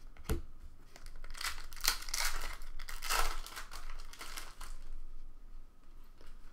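Foil trading-card pack wrapper crinkling as it is opened by hand, loudest for about three seconds in the middle and then dying away. A short knock comes about a third of a second in.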